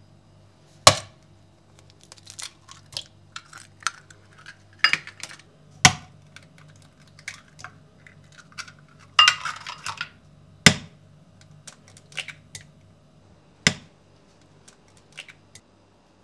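Kitchenware being handled: irregular knocks and clinks of dishes and utensils, a few sharp ones standing out among lighter taps, with a brief rustle about nine seconds in. A low steady hum runs underneath.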